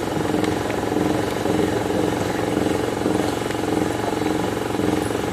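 Steady mechanical rumble with a constant hum, even throughout.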